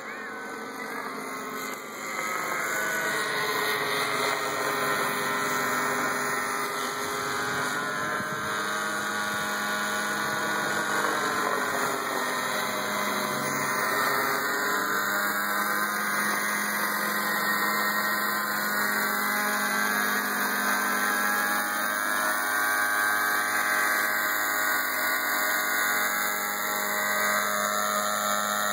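Thunder Tiger Raptor 50 nitro RC helicopter in flight: its two-stroke glow engine and rotors run at high speed, and the whine rises and falls in pitch as it manoeuvres. It gets louder about two seconds in.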